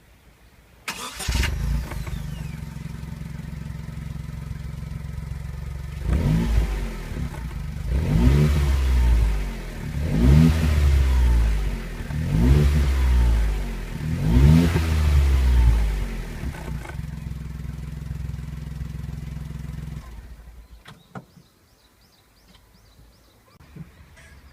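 Honda S660 exhaust with a Mugen silencer, heard from outside the car: the small turbocharged three-cylinder engine starts, idles, is revved five times in quick blips, settles back to idle and is switched off near the end.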